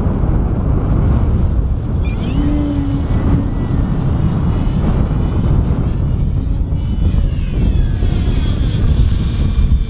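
E-flite Extra 300 3D electric RC plane flying, its motor and propeller whining and rising and falling in pitch, under a heavy low rumble of wind on the microphone.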